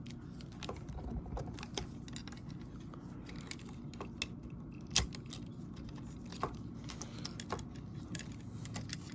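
Small plastic clicks and taps from the parts of a transforming robot action figure being handled and pushed together, coming irregularly, the sharpest about five seconds in.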